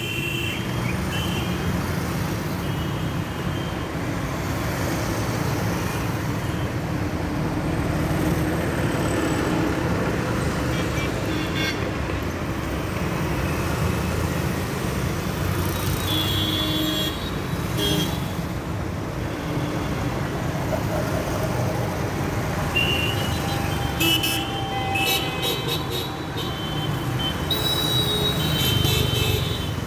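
Busy street traffic: a steady rumble of engines and tyres with horns honking on and off, most often in a cluster of short repeated toots toward the end.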